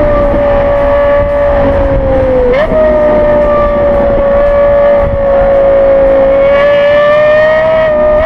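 Lexus LFA's V10 engine running at high revs, a steady high-pitched tone. Its pitch sags slowly, jumps up sharply once about two and a half seconds in, then holds and climbs a little near the end.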